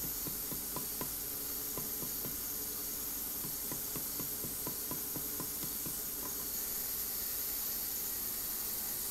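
Light, irregular taps of a small hammer on silver filigree flower petals resting on a wooden stump, a few a second, shaping the petals. The taps stop about six seconds in, with a steady hiss underneath throughout.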